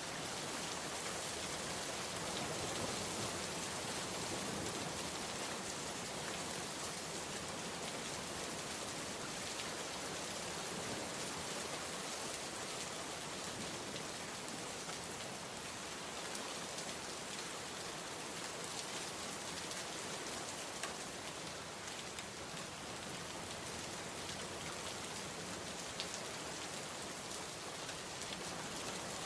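Steady rainfall pattering on a surface, an even hiss of drops with a few sharper drop ticks here and there.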